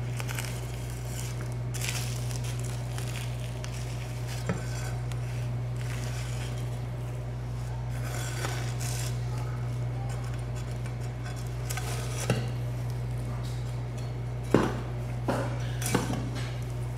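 A large broad-bladed knife scraping and cutting along the bones of a bluefin tuna, with irregular sharp knocks of the blade on the wooden board, several close together near the end, over a steady low hum.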